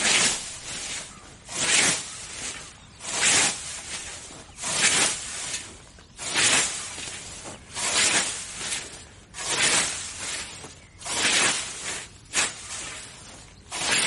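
A repeated swishing noise, one stroke about every second and a half, each starting sharply and fading away.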